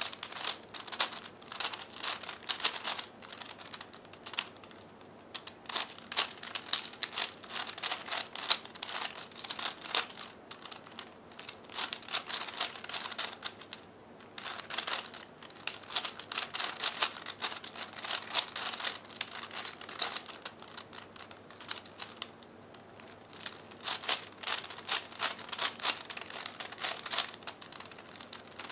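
A 5x5x5 V-Cube puzzle cube's plastic layers clicking and clacking as they are turned in quick runs of moves, with a few short pauses between runs.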